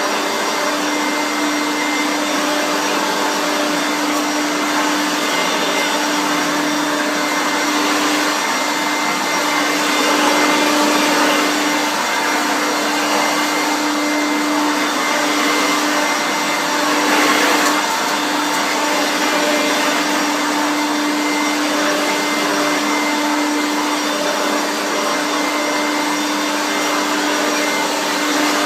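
Hoover Turbomaster U5094 vacuum cleaner running steadily, a constant motor hum and airflow rush with slight swells about ten and seventeen seconds in.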